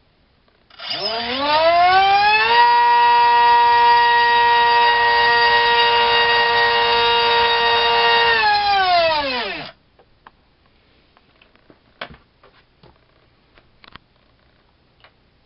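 A2212 2700kv brushless outrunner motor spinning a 4.5x4.5 two-blade propeller: it spins up in a rising whine about a second in, holds a steady high-pitched whine at full throttle for about six seconds, then winds down and stops. At full throttle it draws about 350 watts, more than its rated power. A few faint clicks follow.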